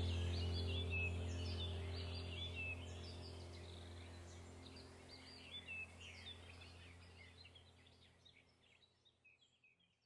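Birdsong, many quick chirps, over a steady low hum, fading out gradually to nothing near the end.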